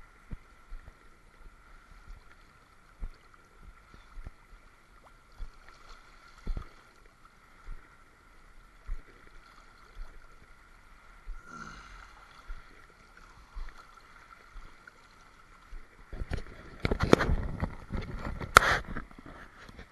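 Seawater lapping and knocking against a camera held at the surface, under a faint steady high whine. In the last few seconds it gives way to louder, rapid splashing in the shallows.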